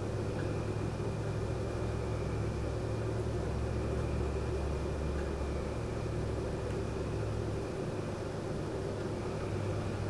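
Air-conditioner condenser fan running with a steady low hum, under a continuous high-pitched cricket trill.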